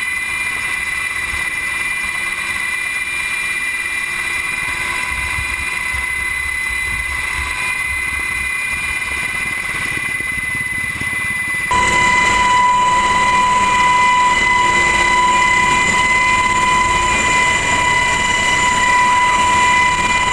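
Military helicopter cabin noise through an open side door: the steady whine of the engines and transmission over the rotor and air noise. It gets suddenly louder a little past halfway through.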